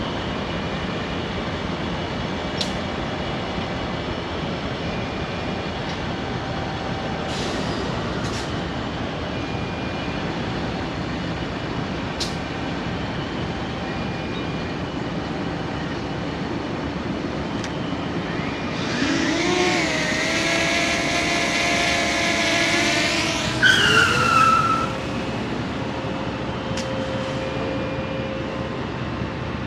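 Locomotive-hauled freight train of acid tank wagons rolling past, a steady rumble of wheels on rail with a few sharp clicks. About two-thirds through, a loud chord of several held tones starts with an upward swoop, lasts about five seconds, and ends in a short louder burst with falling tones.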